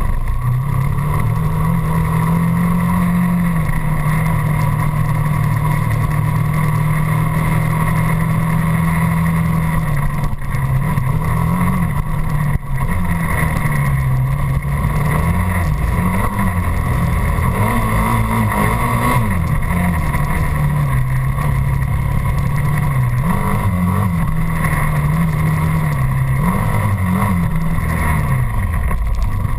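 Dirt bike engine running under way, heard close from the handlebars. Its note holds steady for the first third, then rises and falls again and again with the throttle.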